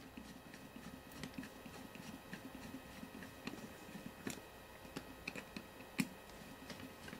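Faint handling of small metal instrument parts: soft rustling with scattered light clicks, and two sharper ticks about four and six seconds in.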